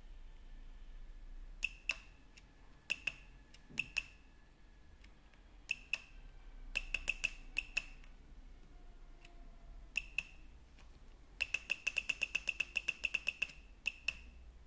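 Sharp clicks, mostly in pairs, each with a brief high-pitched ring. About two-thirds of the way in they speed up to a fast run of about eight a second for two seconds.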